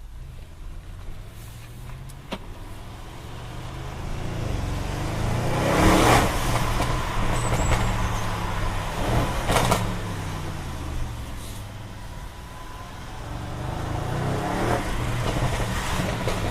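Audi RS6 Performance twin-turbo V8 accelerating hard in rising pulls, with two sharp exhaust cracks at the gear changes about six and nine and a half seconds in, then easing off and pulling again near the end.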